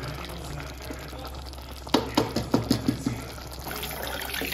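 Rice cooking in an enamel pot, with a spatula knocking sharply against the pot about seven times over a second. Near the end liquid is poured in from a blender jar with a rushing splash.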